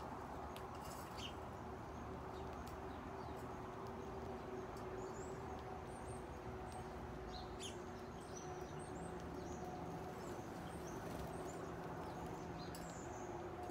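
House sparrows giving short, scattered chirps, more frequent in the second half, over a steady low background hum.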